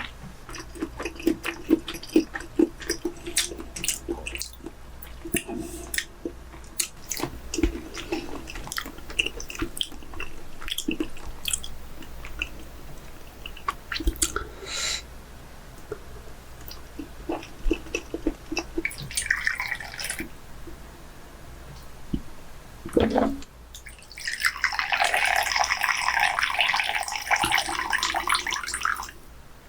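Scattered clicks and taps of handling food and utensils, then, near the end, about five seconds of liquid running or pouring.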